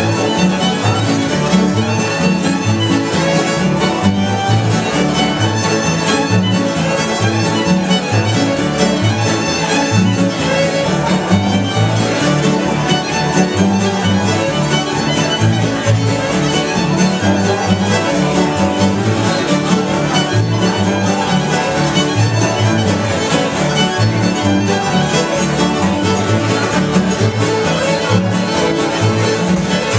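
Bluegrass string band playing together: fiddle to the fore over strummed acoustic guitars, mandolin and banjo, with an upright bass walking a steady two-beat line underneath.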